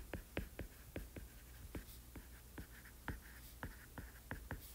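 Stylus tip tapping and sliding on a tablet's glass screen during handwriting, heard as a quick, irregular run of faint ticks, about five a second.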